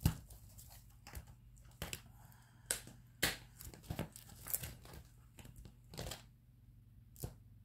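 Plastic binder pages and card sleeves crinkling, with a string of irregular short clicks and snaps as a card binder that has come open is handled and put back together. The loudest snap comes a little past three seconds in.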